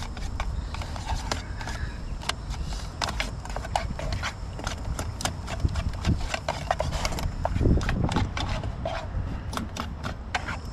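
Small whisk clicking and scraping against a thin camping frying pan in quick, irregular taps while a roux is worked into a béchamel, with a dull bump about two-thirds of the way in.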